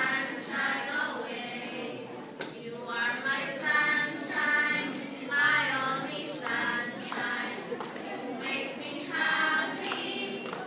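A group of children singing together as a choir, in phrases of held, wavering notes.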